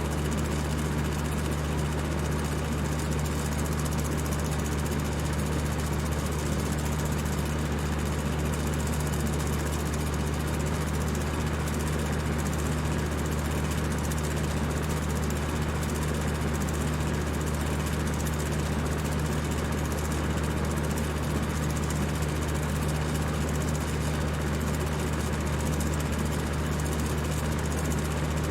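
High-speed electric fan running steadily: an even whir of rushing air over a low, constant motor hum.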